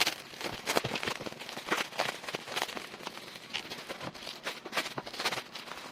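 Keys of a W&J Tech GTX300 mechanical gaming keyboard being typed on, a fast uneven run of sharp clacks, several a second.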